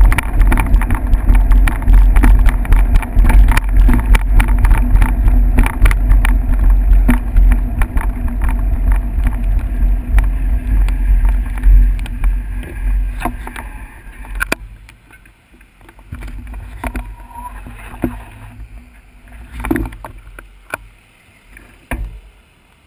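Wind and road vibration on a moving camera mount: a loud low rumble with many knocks and rattles. About fourteen seconds in it drops away, and cars and a pickup truck pass close by, swelling and fading one after another.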